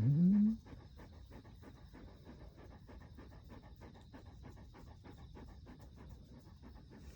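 Dog panting in quick, even breaths, about five a second, after a brief rising vocal sound right at the start.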